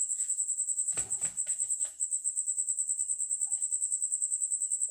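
A cricket chirping steadily in fast, even, high-pitched pulses. About a second in, a wooden spatula stirs kangkong leaves in an aluminium pot, giving a few short scrapes and knocks.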